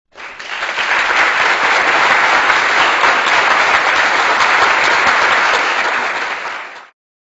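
Applause sound effect: dense, steady crowd clapping that swells in over the first second and stops abruptly near the end.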